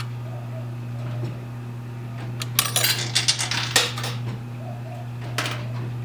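Quarters clinking and sliding against each other on a coin pusher's playfield, a quick cluster of metallic clinks a little past halfway and one more near the end, over the machine's steady low hum.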